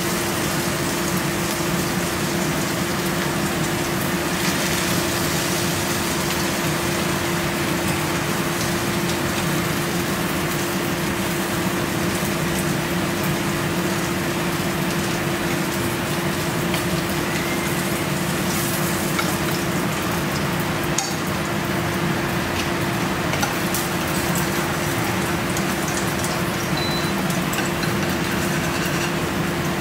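Kitchen range hood fan running steadily: a constant hum under an even rushing hiss.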